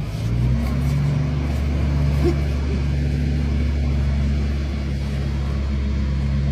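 A motor or engine starts up and runs steadily with a low, even hum, typical of the machinery used when working on a truck tyre.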